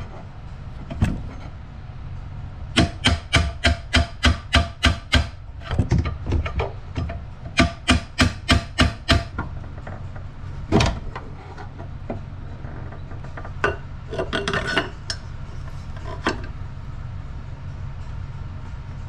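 Hammer blows driving a chisel against a stripped, seized bolt head to make it bite and get a grip. Two quick runs of sharp metal strikes, about four a second, then one hard blow and later a few lighter taps and clinks.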